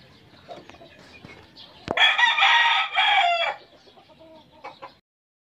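A gamecock crows once about two seconds in, a call lasting about a second and a half, with a sharp click just before it. A few faint short clucks follow near the end.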